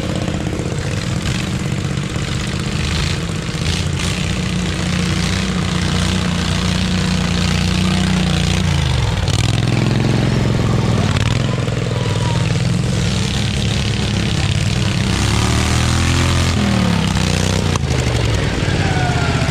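Small garden tractor engines running under load on a rough trail. Engine speed holds steady for several seconds, drops sharply about halfway through and climbs back up, then rises and falls again near the end.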